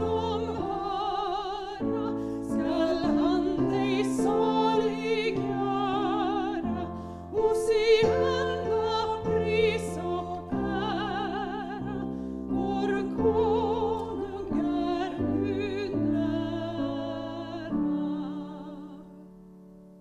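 Hymn singing: a voice with vibrato over a sustained keyboard accompaniment, ending on a held final chord that fades away near the end.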